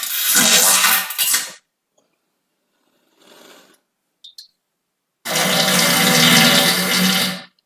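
A person breaking wind in two long, loud farts: one lasting about a second and a half at the start, another of about two seconds beginning some five seconds in. Each is a noisy hiss with a low buzzing tone beneath it. Between them there is silence with a couple of faint clicks.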